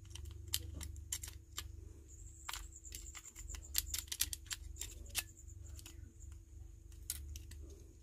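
Light, irregular clicks and taps of a smartphone's main board and metal shields being pressed and fitted into the phone's plastic frame by hand, over a steady low hum.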